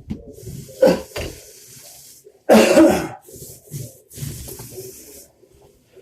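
Paint roller being worked over a wall in repeated rasping strokes. About two and a half seconds in there is a loud throaty cough from the painter.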